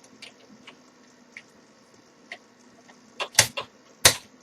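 Lock-picking tools working inside a five-lever mortice lock: faint scratchy clicks, then a cluster of sharp metallic clicks and knocks near the end.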